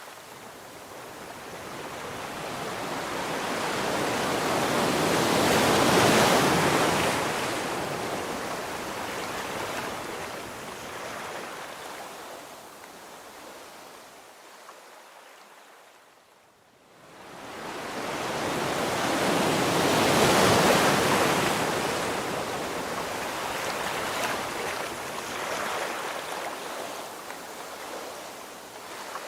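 Surf: two long swells of wave noise, each building and fading over several seconds, with a brief lull between them.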